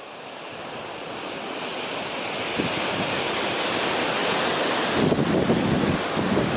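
Ocean surf: a steady wash of breaking waves that swells gradually over the first few seconds. From about five seconds in, wind buffets the microphone.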